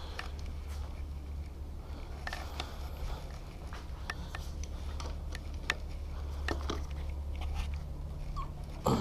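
Scattered light clicks and taps from a plastic front fender, bolts and a socket wrench being handled, over a steady low hum.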